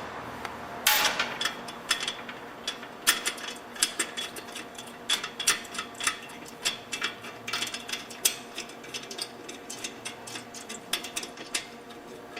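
Metal hand tools working under a car: quick, irregular clicks and clinks as nuts are backed off the catalytic converter's studs.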